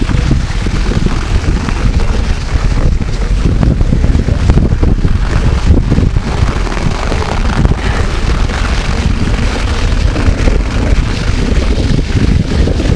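Loud, rumbling wind buffeting the microphone of a bike-mounted camera while riding, steady and unbroken throughout.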